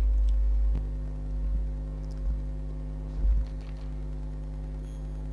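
Steady electrical mains hum picked up by the recording microphone. It drops a little under a second in, with a few faint low thumps, the strongest about three seconds in.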